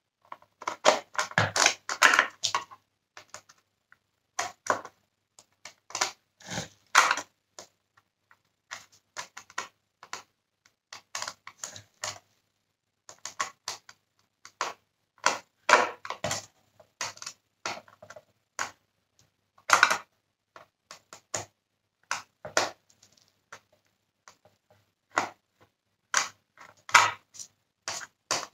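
Irregular plastic clicks, scrapes and rattles from a Dyson Cinetic Big Ball cyclone unit being handled while a small T8 Torx screwdriver works a screw into its plastic housing; the sounds come in short clusters with brief pauses between.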